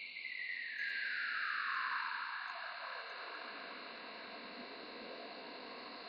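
Siemens shortwave receiver in SSB mode being slowly tuned past a signal with its fine-tuning knob: a band of hiss that sweeps steadily down in pitch over about three seconds, then settles into steady static.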